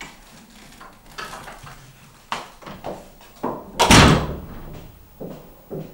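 A hotel room door slammed shut about four seconds in, the loudest sound here. It is preceded by a few lighter knocks and clicks.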